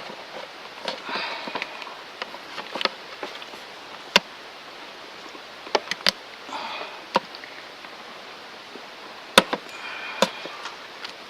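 Vinyl electrical tape pulled off the roll and wrapped tight around a loose hose in an engine bay, as a makeshift repair. It gives three short crackling rips of tape, with sharp clicks and taps between them.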